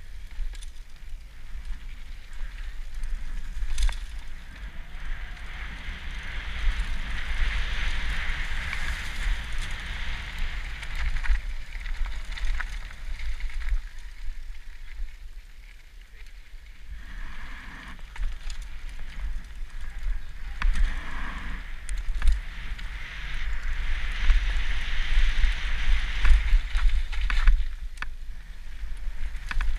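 Mountain bike descending a dirt trail, heard from a helmet-mounted camera: wind rumble on the microphone with tyres rolling over dirt and the bike rattling. A rushing hiss swells and fades twice, and there are scattered sharp knocks from bumps.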